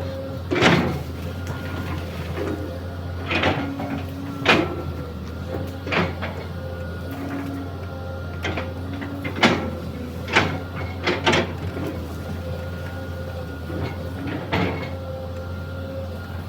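Excavator engine running steadily while the machine works, with about ten sharp cracks and knocks at irregular intervals.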